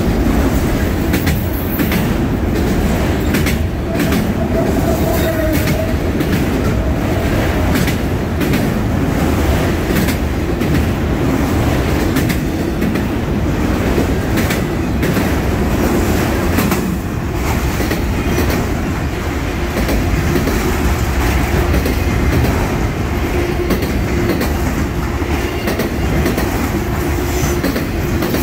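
Freight train of autorack cars rolling past: a steady rumble of steel wheels on rail, broken by repeated clicks as the wheels cross rail joints. A faint, brief wheel squeal comes about four seconds in.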